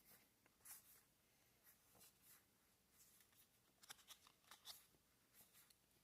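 Faint rustling and sliding of trading cards as a pack is flipped through by hand: a scatter of short, soft scrapes, a few in quick succession a little past the middle.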